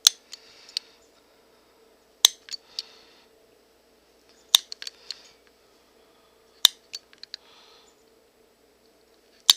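Leather mitt cuff being hand-stitched: a sharp click about every two seconds, five in all, each followed by a few light ticks and a short soft rustle, over a faint steady hum.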